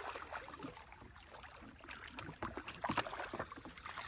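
Water sloshing and irregular splashing and knocking from a small boat being paddled, over a steady thin high-pitched hum.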